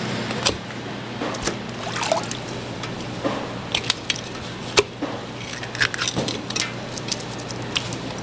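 Cleaver tapping and scraping on a wet wooden chopping block as a milkfish is cut, with wet squishing of the fish, in irregular sharp clicks, one louder knock a little before the middle. A steady low hum runs underneath.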